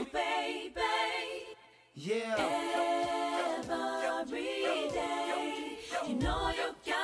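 Unaccompanied sung vocal harmonies in a DJ mix, with no drums or bass: held and gliding sung chords, broken by a brief dropout about a second and a half in. A deep bass note comes in near the end.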